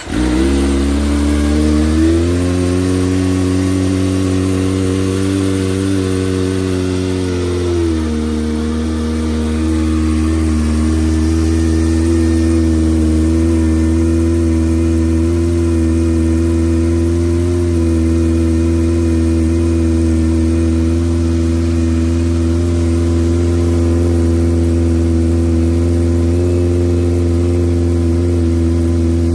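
Kawasaki ZX-25R's 250 cc inline-four, through a Yoshimura R-77 full exhaust, firing up on a freezing cold start. It climbs to a raised idle for several seconds, drops to a lower steady idle about eight seconds in, and runs on there.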